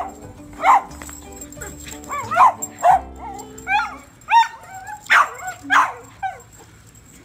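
A small puppy's short, high-pitched yaps and barks, about ten of them in irregular bursts, over steady background music.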